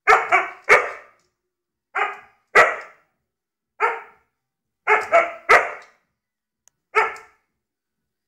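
Husky barking at a lit lighter flame held up to its face: about ten short, sharp barks in quick groups of one to three, with short pauses between the groups.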